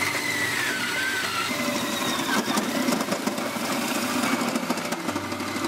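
Electric drill turning a 2-inch hole saw through a welded sheet-metal firewall patch panel: the motor whines, dropping in pitch about a second in, and the saw teeth grind steadily through the metal.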